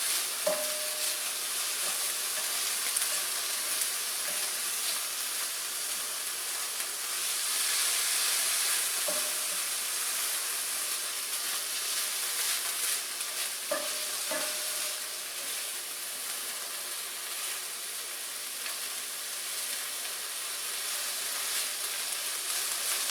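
Shaved ribeye steak with onion and jalapeño sizzling steadily in a hot pan while being stirred, with a few short scrapes of the utensil against the pan.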